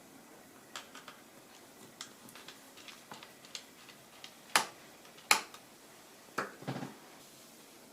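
Small clicks and taps from handling laptop parts during disassembly: scattered light ticks, two sharp clicks about halfway through, then a short clatter of clicks and a duller knock a little later.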